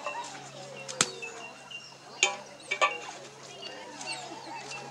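Dogs whining and whimpering with high, wavering cries over a steady low hum. A sharp click comes about a second in, and two more sharp knocks follow a little after two seconds and just before three.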